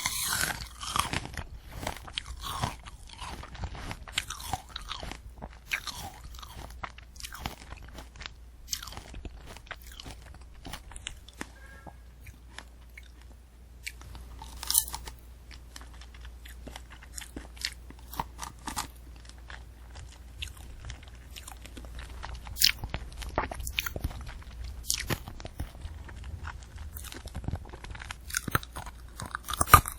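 Close-miked chewing of a candy apple: the hard red sugar-candy shell and the crisp apple crunch and crackle in irregular bursts. A few louder cracks come near the middle and later on.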